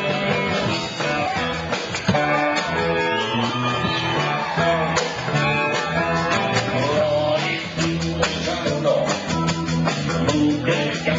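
Live blues-rock band playing: electric guitar over a full drum kit, loud and steady.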